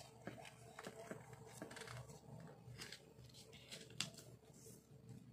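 Faint rustling and creasing of a sheet of paper being folded and pressed flat by hand on a table, with scattered soft ticks and one sharper click about four seconds in.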